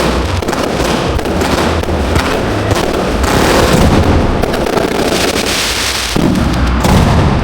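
Fireworks barrage heard from close to the launch site: a dense, continuous run of bangs and crackling with no break.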